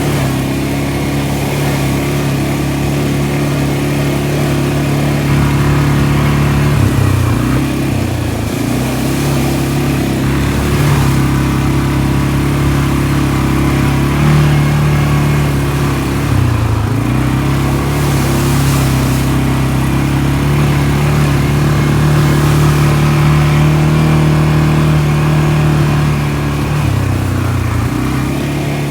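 ATV (four-wheeler) engine running under steady throttle while riding, its note dipping and climbing back a few times as the throttle eases and opens again.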